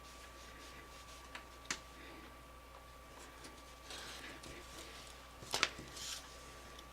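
Faint handling sounds of hand-stitching leather: a few light clicks, the sharpest a little after five seconds in, and short soft rasps as needle and thread are worked through the stitching holes.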